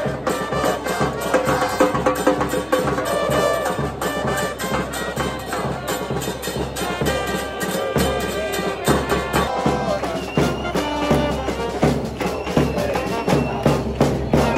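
Music with sustained melodic tones over busy, regular percussion; the percussion grows stronger about two-thirds of the way in.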